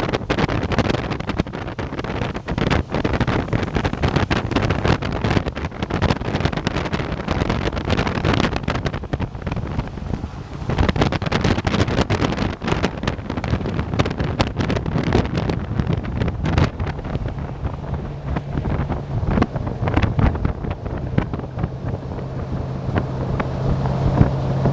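Wind buffeting the microphone of a camera riding on a vehicle at highway speed, over engine and road noise. A steady low hum joins about two-thirds of the way in.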